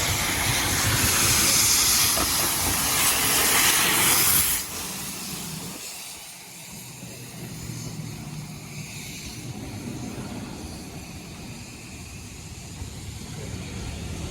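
Steam locomotive letting off a loud hiss of steam that cuts off suddenly about four and a half seconds in. A quieter low rumble from the train continues after it.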